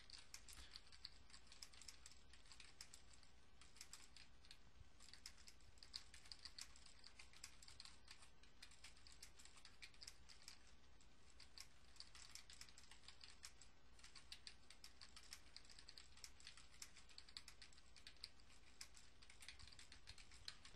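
Faint computer keyboard typing: quick, uneven runs of key clicks broken by a few short pauses.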